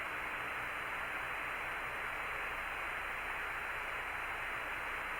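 Steady hiss of radio static on the Apollo air-to-ground voice link between transmissions, with a faint low hum under it.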